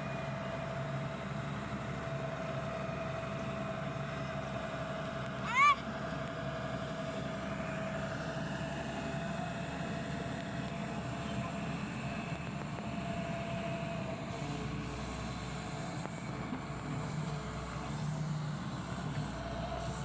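Excavator engine running at a steady drone with a held tone over it. About five and a half seconds in, a short, loud, high squeal rises sharply in pitch.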